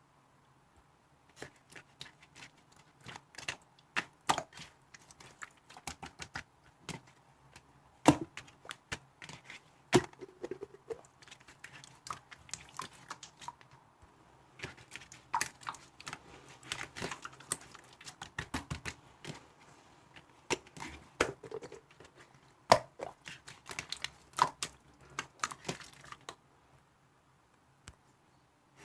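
Irregular clicks, taps and crinkly rustles of small objects being handled close to the microphone, in uneven bursts that start about a second and a half in and stop near the end.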